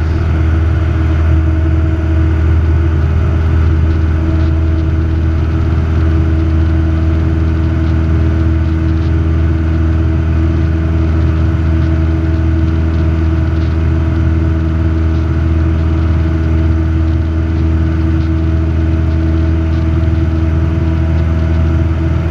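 Robin DR400 light aircraft's piston engine and propeller droning steadily in the cabin, held at climb power as the aircraft climbs.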